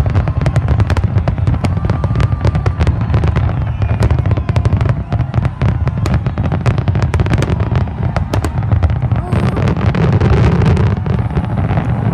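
Aerial fireworks shells bursting in quick succession: a dense run of bangs and crackles over a continuous low rumble, easing off slightly near the end.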